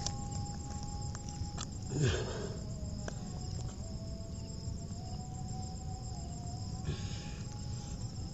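Steady high-pitched chirring of insects. Over it come a few short clicks and a louder rustle about two seconds in and again near the end, and a faint wavering tone runs underneath.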